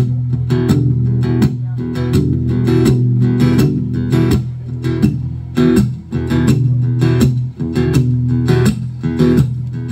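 Acoustic guitar strummed in a steady rhythm, chords ringing over a sustained low bass note: the instrumental intro of a song, before the vocals come in.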